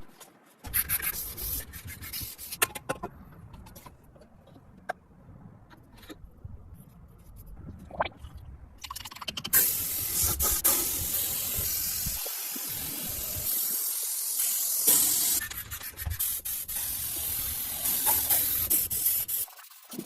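Scattered rubbing and light clicks, then a steady hiss for about ten seconds, starting near the middle.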